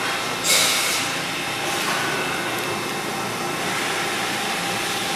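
Mazak Integrex 400-III ST CNC turning center running a cycle: a steady machine hum with a faint high whine. A loud hiss about half a second in and a softer one near two seconds.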